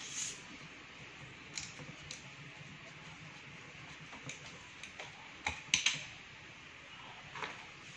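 Scattered light clicks and taps as hands work the cap off the neck of a glass Coca-Cola bottle, with a quick cluster of sharper clicks about five and a half seconds in.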